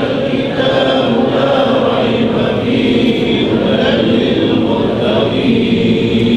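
A congregation of men chanting a Quran verse together in unison, a slow, drawn-out melodic recitation in the Kurdi murattal tarannum.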